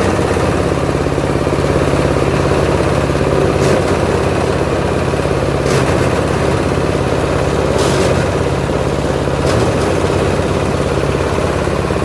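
SM-60 coconut husk grinding machine running with a steady, loud engine drone, with four brief hissing bursts spread through it.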